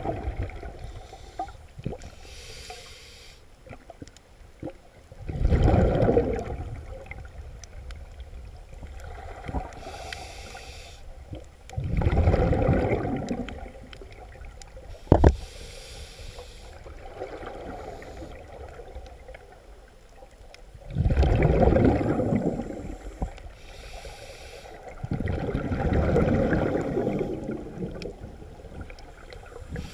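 Scuba diver breathing through a regulator underwater: a soft hiss of inhalation, then a loud rumbling burst of exhaled bubbles, repeating about every six to eight seconds. A single sharp click comes about halfway through.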